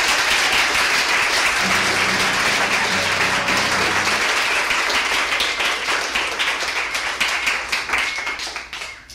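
Audience applauding at the end of a live song. The clapping stays full and then dies away near the end.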